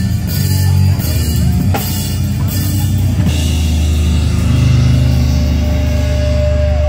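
Live heavy metal band playing loud: distorted electric guitar and drum kit. About three seconds in, the choppy riffing gives way to a held low drone, and a steady high tone comes in near the end.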